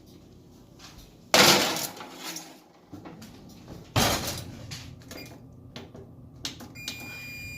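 Oven door and tray handled: a loud clatter about a second in, then a sharp bang as the door shuts. Near the end, a steady electronic beep from the oven's control panel as the timer is set.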